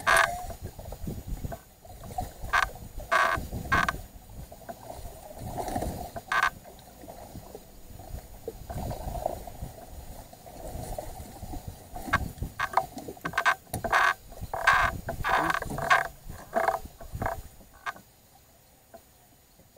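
Casting reel clicking in short bursts as a big blue catfish on the line pulls back against the drag: a few clicks at first, then a quick run of them past the middle, over a low rumble.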